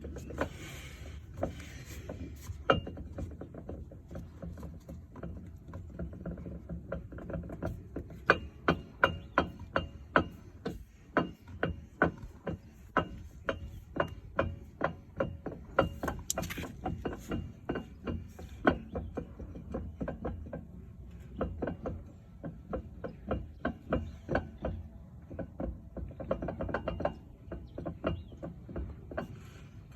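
A 2008 Hyundai Sonata damaged in a rear-end hit makes a regular clicking or ticking noise, about two to three clicks a second and strongest through the middle, over a steady low hum. This is the fault noise the owner is trying to diagnose.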